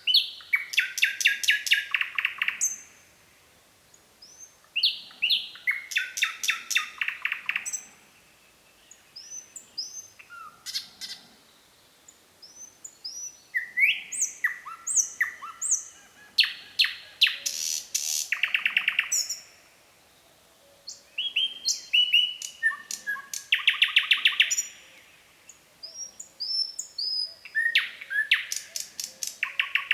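Nightingale singing: phrases of rapid repeated notes, rattling trills and short whistles, each phrase a few seconds long, separated by pauses of a second or two.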